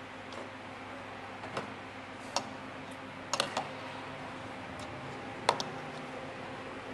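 Metal spoon and fork clinking against a plate while eating rice, about six short sharp clinks, three of them in quick succession near the middle and the loudest about five and a half seconds in, over a steady low room hum.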